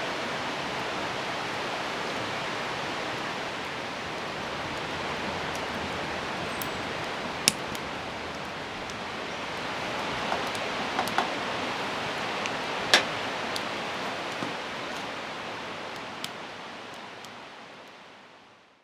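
Steady rain hiss with a few scattered sharp ticks, fading out near the end.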